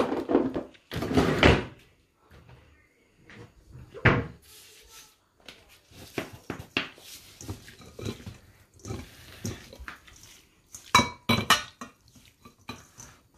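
Raw prawns being hand-mixed with chilli powder and turmeric in a stainless steel colander sitting on a bowl. The steel colander gives irregular knocks and clatters, louder about a second in and again about four seconds in, with a run of small quicker knocks near the end.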